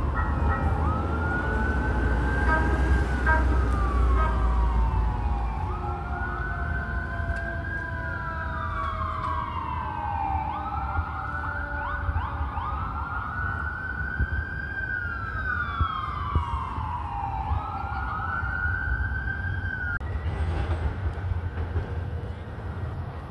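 Emergency vehicle siren wailing in slow cycles, each rising in about a second and falling over about three, over low street traffic noise. The wail stops near the end.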